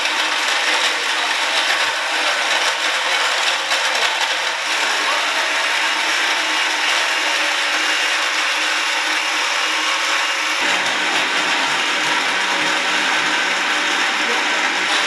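Countertop blender running on high, blending ice with strawberries, blueberries and orange juice into a smoothie. Its sound changes twice, about four and a half and ten and a half seconds in.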